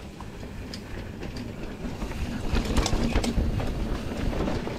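Mountain bike rolling along a dirt trail: tyres rumbling over the ground and the bike rattling and clicking over bumps, with wind buffeting the microphone, getting louder about halfway through as it picks up speed.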